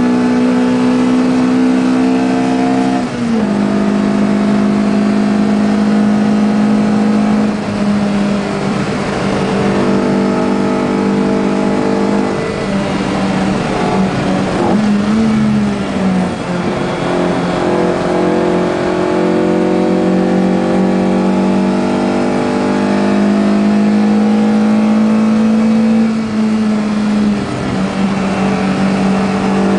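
BMW M3 E30's four-cylinder DTM racing engine, heard from inside the cabin, running hard at high revs under load. Its pitch holds steady and then steps down briefly a few times, about three seconds in, around eight and sixteen seconds, and again near the end.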